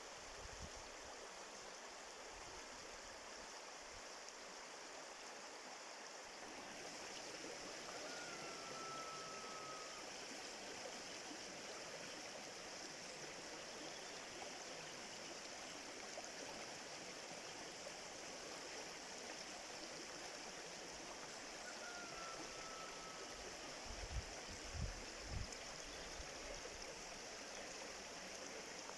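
Steady rushing and babbling of a stream, fuller from about six seconds in, with two faint whistled notes falling slightly in pitch. A few low thumps come near the end.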